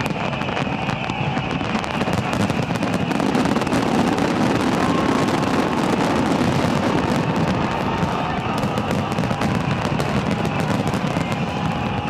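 Large fireworks display in full barrage: a continuous, dense crackle of many bursts and bangs with no break.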